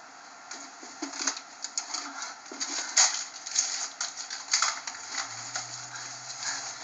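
A string of irregular rustles and clicks, as of handling and movement, with a faint steady low hum coming in about five seconds in.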